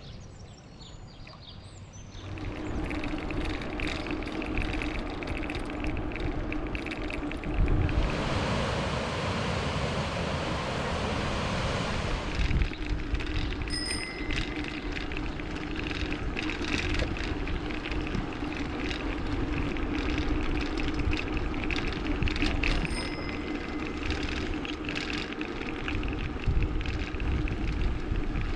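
Bicycle being ridden: tyre noise and the rattle of the bike, with a steady hum, starting about two seconds in. A louder rush of noise lasts for about four seconds around the middle.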